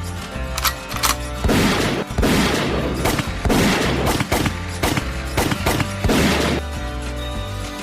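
A rapid series of gunshot sound effects, about eight shots with echoing tails, over steady background music; the shooting starts about a second and a half in.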